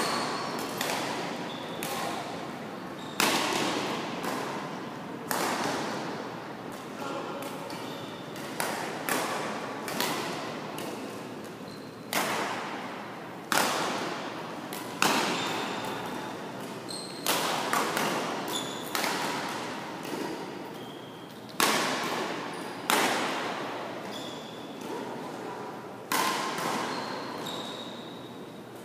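Badminton rackets striking shuttlecocks: sharp smacks at irregular intervals, about one every second or two, each with a ringing echo in a large hall.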